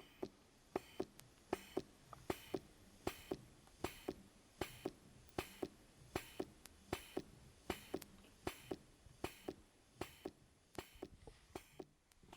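Electric breast pump running, a steady cycle of sharp clicks about two to three a second, often in pairs, over a faint background hiss.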